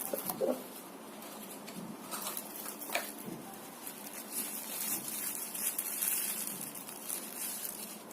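Light rustling with a few small clicks and knocks as the camcorder and its accessories are handled, over a steady hiss.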